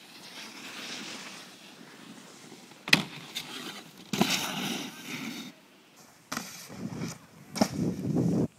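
Snowboards scraping and sliding over hard-packed snow in several loud stretches that start and stop abruptly, with a sharp knock about three seconds in.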